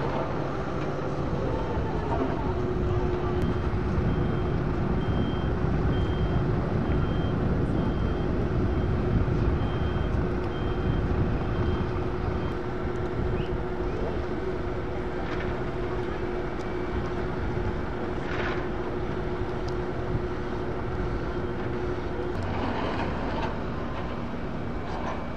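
Diesel asphalt-paving machinery (road rollers and an asphalt paver) running steadily with a constant hum. A reversing alarm beeps about once a second for around ten seconds in the first half.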